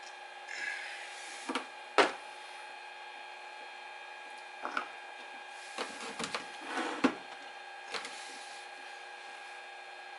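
Scattered clicks and knocks of the oil bottle and fill cap being handled while oil is added to a generator's crankcase, the sharpest about two seconds in and a quick cluster around six to seven seconds. A steady faint hum of several tones runs underneath.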